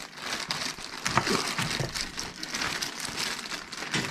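Packaging being handled: plastic and paper wrapping crinkling and rustling in a run of small crackles.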